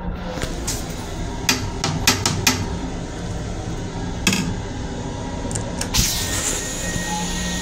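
Steady hum of an M7 electric railcar running, heard inside its small restroom. A series of sharp knocks and clicks comes through the first half, and a louder hiss starts about six seconds in.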